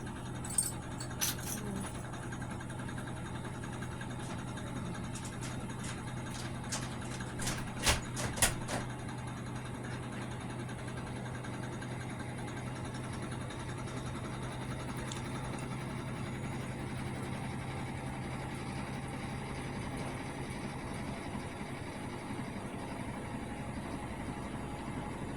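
Hotpoint Aquarius washing machine running with a steady low hum, broken by a few sharp clicks near the start and a cluster of louder knocks about eight seconds in.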